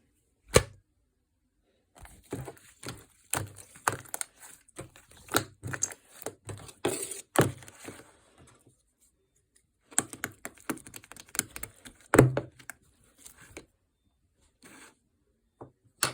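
Fluffy foam slime being squeezed and stretched by hand, giving irregular crackling clicks and pops in two long stretches with quiet pauses between them.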